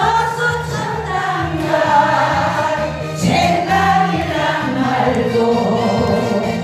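Music with several voices singing together over a backing track, the melody lines gliding and held.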